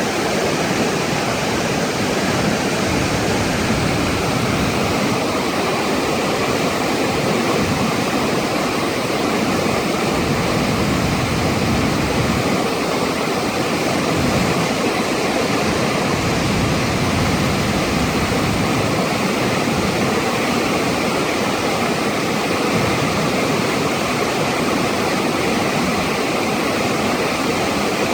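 Flash-flood water rushing and pouring down a desert canyon and its waterfall, a loud, steady rush.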